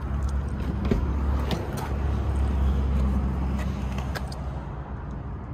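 Porsche 911's driver's door being opened by its handle, a few sharp clicks of the latch and door, over a steady low rumble.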